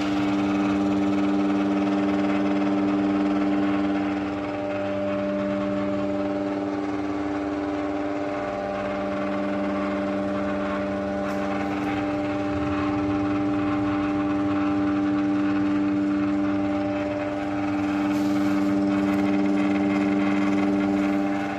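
Royal Deluxe ceiling fan's electric motor giving a steady, strong electrical hum, low-pitched with several overtones, swelling and easing slightly a few times.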